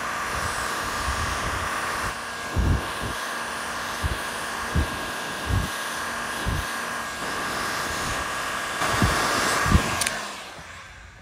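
Heat gun blowing steadily while heating the crank bearing pocket of a chainsaw crankcase, so the case expands and the bearing can be tapped out. Several dull low thuds come through the middle. The gun is switched off about ten seconds in and its blower winds down.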